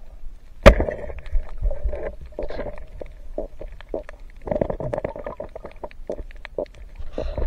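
Underwater sound in a camera housing: one sharp crack a little under a second in, as a speargun shot strikes a fish. It is followed by a run of clicks, knocks and bubbling over a low rumble while the speared fish struggles on the shaft.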